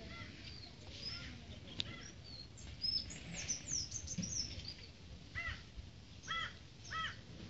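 Birds calling: quick high chirps and whistles through the first half, then three short, arched calls in the last two seconds.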